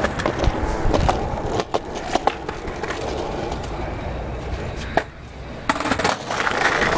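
Skateboard wheels rolling over a concrete sidewalk, clicking sharply as they cross the joints. A loud clack comes about five seconds in, then a short lull, then rougher rolling over brick pavers.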